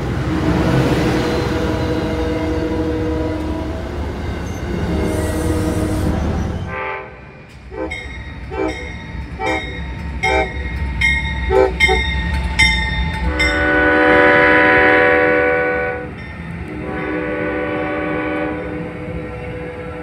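A commuter train rolls close past with a loud rumble of wheels and cars, its horn sounding steadily for the first few seconds. Then an Amtrak GE Genesis diesel locomotive's air horn gives a string of short toots followed by two long blasts.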